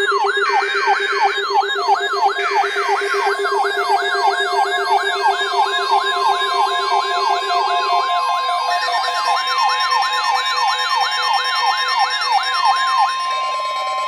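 Weather radio alert alarms sounding: a siren-like tone sweeping down in pitch about three times a second, over a steady low tone that stops about eight seconds in. A steady higher alert tone joins soon after, heralding the next broadcast.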